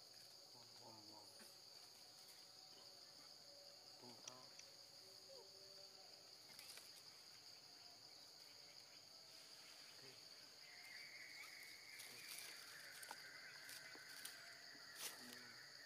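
Faint, steady high-pitched drone of forest insects, with a second, lower insect buzz joining about ten seconds in and a few faint clicks.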